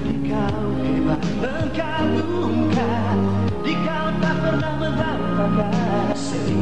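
Advertising jingle: a Malay pop ballad, with a singer over held bass notes and a band backing.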